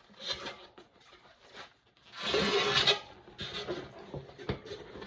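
Rubber inner tube being pulled out of a fat bike tire, the rubber rubbing and scraping against the tire. A loud rasping rub lasts about a second in the middle, and small knocks and clicks follow.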